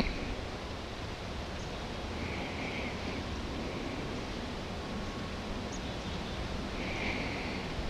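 Steady rushing outdoor background noise, with two faint, brief higher-pitched sounds about two and a half seconds and seven seconds in.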